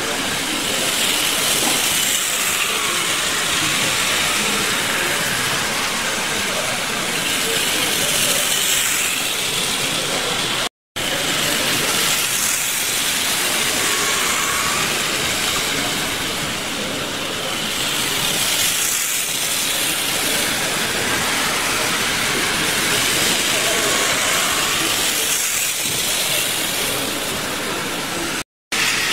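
Playcraft HO-scale model trains running around the layout's track: a steady hissing whir of wheels and motors that swells and fades as the trains come by. The sound drops out to silence for a moment twice.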